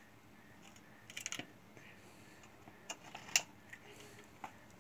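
A few faint, light plastic clicks and ticks at irregular intervals, the loudest a little over three seconds in, from a new washing-machine brake actuator and its power plug being handled while it is tested.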